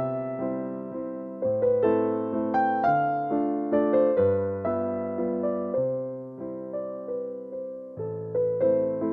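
Background music: slow, gentle piano melody with sustained low bass notes, each note struck and fading away.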